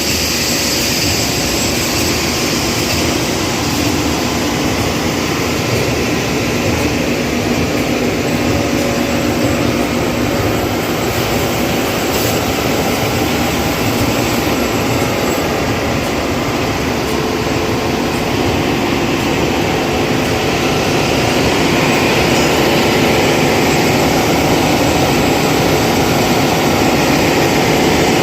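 CNC rubber blanket wood sanding machine running, a loud, steady mechanical noise that gets a little louder about three-quarters of the way through.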